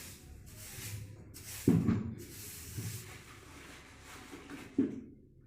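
Fuel-pipe quick connectors being handled and pulled off a diesel filter housing: faint handling and scuffing with two short knocks, one about a second and a half in and one near the end.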